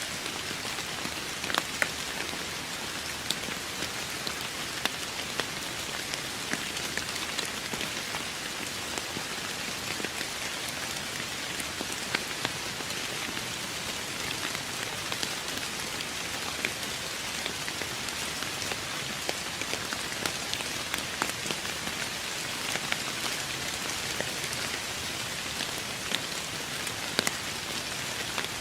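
Steady rain falling on a surface, an even hiss with scattered distinct drop ticks standing out here and there.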